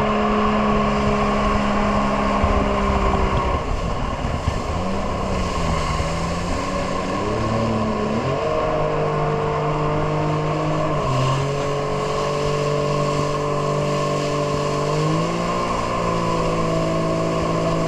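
Jet ski engine running under way, its pitch holding steady for a few seconds at a time and then stepping up or down several times as the throttle changes, over a steady rush of noise.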